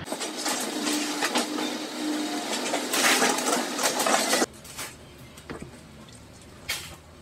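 Scratchy rubbing and scraping by hand on a fibreglass flange, full of small clicks, as adhesive is worked along the edge of the crash-bulkhead lid opening. It stops abruptly about four and a half seconds in, leaving a few faint taps.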